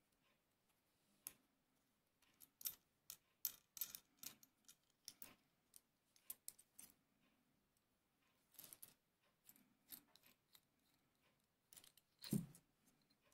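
Small steel parts of a miquelet flintlock clicking and clinking irregularly as they are handled and separated by hand, with one duller, louder knock near the end.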